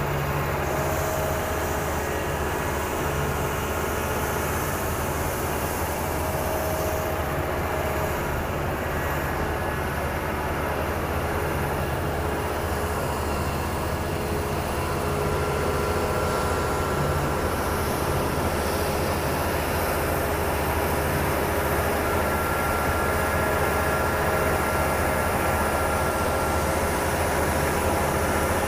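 Steady low mechanical rumble, like running engines, with a few faint steady tones above it and no clear breaks.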